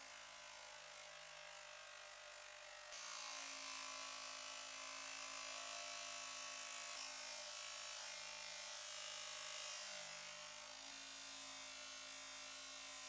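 Bench grinder running with a buffing wheel, first with a polishing compound bar pressed against it, then with a small bolt held to the spinning wheel for polishing. The steady buzz gets louder about three seconds in.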